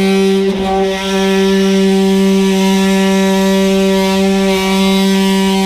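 Cordless oscillating multi-tool running steadily with a loud, even buzz as its blade cuts the urethane holding a truck's rear slider glass. It dips briefly about half a second in and again near the middle.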